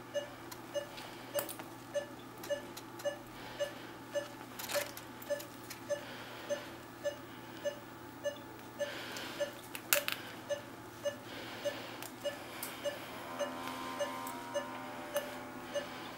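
Anesthesia patient monitor beeping in time with the anesthetized dog's pulse: a short mid-pitched beep repeating evenly, just under twice a second. A few sharp clicks of surgical instruments sound over it, over a low steady hum.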